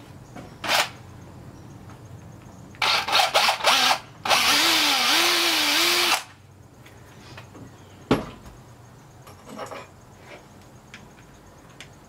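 Cordless drill boring into a plastic tripod quick-release mount: a short burst, a few quick trigger blips, then a steady run of about two seconds with the motor pitch wavering under load. A single sharp click follows a couple of seconds later.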